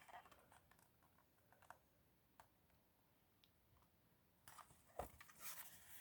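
Near silence with a few faint small clicks, then soft paper rustling and a low thump near the end as a picture book's page is handled and turned.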